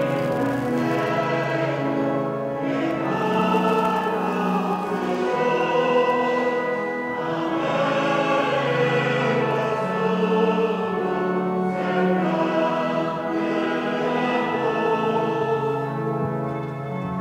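Church choir singing a hymn with organ accompaniment: long held notes and a steady low organ bass under the voices.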